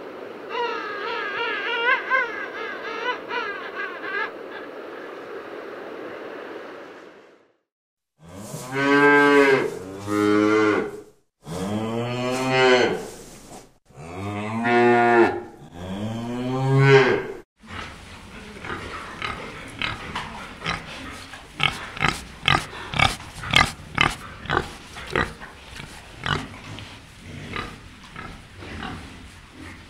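Cattle mooing: about five long, loud moos one after another, each rising and falling in pitch. Before them comes a steady hiss with faint warbling calls for several seconds. After them, pigs grunt and snuffle in a rapid string of short grunts.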